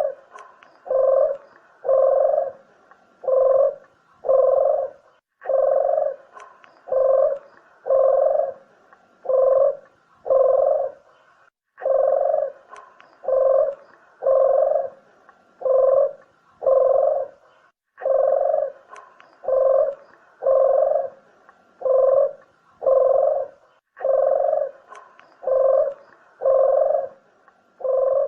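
Puter dove (ringneck dove) cooing: a low coo repeated about once a second in runs of five, each run starting again about every six seconds with identical spacing, a repeated lure call of the kind played to draw doves in for shooting or trapping.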